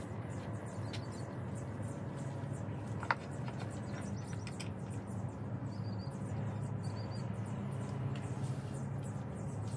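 Outdoor ambience with a steady low hum, small birds chirping briefly in short quick runs, and a single sharp knock about three seconds in as the wooden furniture parts are handled.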